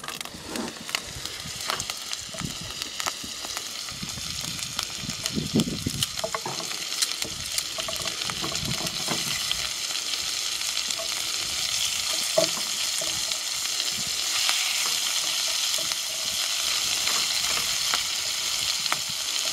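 Pieces of venison tenderloin sizzling in hot oil in a cast-iron skillet, the sizzle growing louder over the first ten seconds or so as more pieces go into the pan, with a few light clicks.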